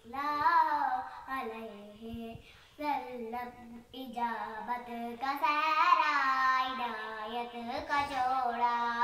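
A young girl singing a naat, an Urdu devotional song in praise of the Prophet, solo in long melismatic phrases with short pauses for breath.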